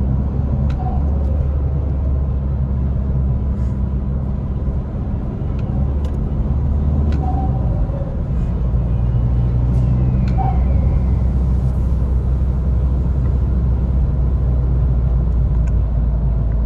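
Steady low rumble inside the cabin of a Škoda Octavia II while driving, from its 1.9 TDI four-cylinder turbodiesel engine and the tyres on the road.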